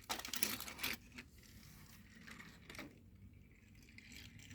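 A brief rustling clatter of small hard objects being handled in the first second, followed by a few faint scattered clicks and a single small click near the end.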